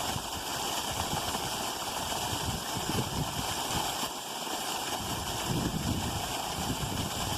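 Creek water running steadily, with an irregular low rumble underneath.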